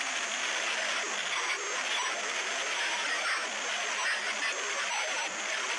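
Glitch noise sound effect: continuous harsh, crackling static with warbling garbled fragments, starting abruptly, of the kind played to fake a broken audio connection on a video call.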